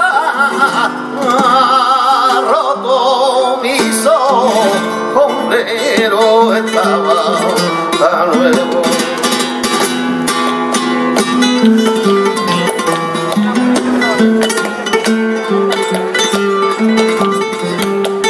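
Live flamenco, a soleá apolá: a male cantaor sings a wavering, ornamented line over flamenco guitar for about the first five seconds. Then the guitar plays on alone, with hand-clapping (palmas) keeping the rhythm.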